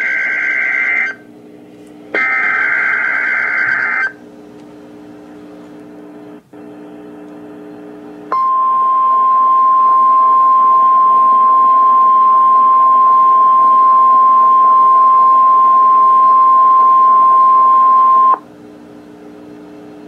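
NOAA Weather Radio Emergency Alert System tones. Two buzzing digital data bursts of the alert header come first, one ending about a second in and the next lasting about two seconds. Then, about eight seconds in, the steady single-pitch 1050 Hz warning alarm tone sounds for about ten seconds and cuts off suddenly; it signals that an urgent warning or watch message follows.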